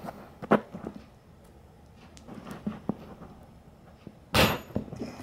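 Metal snips cutting a thin metal rod to length for a motor shaft: a sharp click about half a second in, a few light ticks, then one loud snap about four seconds in.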